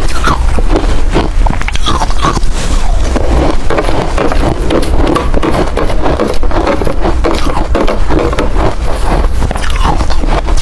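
Close-miked chewing of ice: a dense, continuous run of loud crunches and crackles as the pieces break between the teeth.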